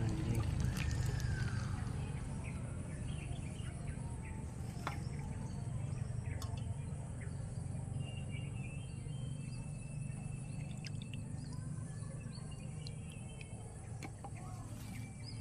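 Outdoor ambience: a steady low rumble with scattered faint bird chirps and small clicks, including one short rising-and-falling call about a second in.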